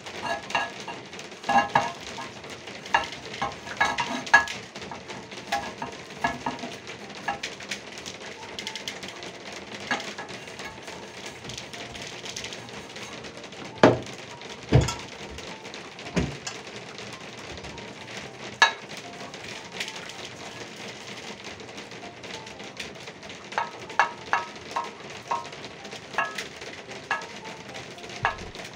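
A paintbrush scrubs and dabs waterproofing emulsion onto the inside of a terracotta flower pot in runs of quick, scratchy strokes. About halfway through come a few louder knocks as the brush is dipped in and tapped against the emulsion container.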